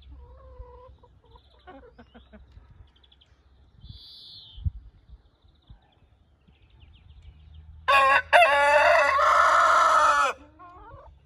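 A rooster crowing once, loudly, about eight seconds in: a short opening note, then one long drawn-out cock-a-doodle-doo lasting about two seconds. Faint scattered bird calls come before it.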